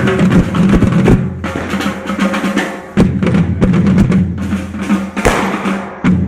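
Street drum band of a devils' troupe playing a driving rhythm, bass drum strokes under snare drum rolls.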